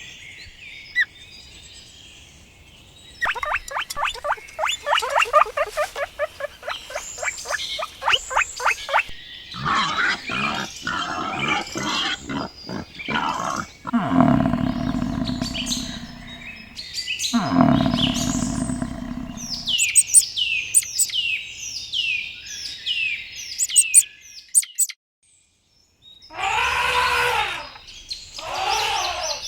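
A string of different animal calls cut one after another: faint chirping, then a fast run of chattering calls, two long low calls, a series of high falling squeaks, a brief gap, and arching whinny-like calls near the end.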